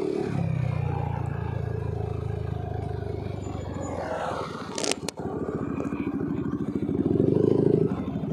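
Yamaha NMAX 155 scooter's single-cylinder engine running under way, heard from the rider's seat, with a brief sharp knock about five seconds in and the engine growing louder near the end.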